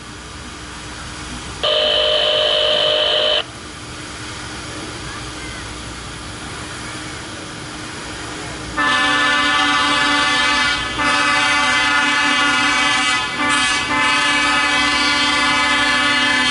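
High-rail truck's horn sounding as it nears a road crossing: a short blast about two seconds in, then from about nine seconds the grade-crossing pattern of long, long, short, long.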